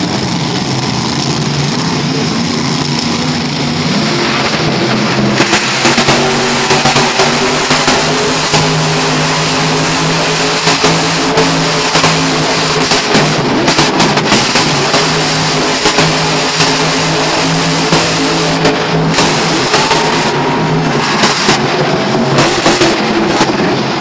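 Monster truck's supercharged big-block V8 running hard under throttle, revved up and down again and again, with short, sharp rises from about five seconds in.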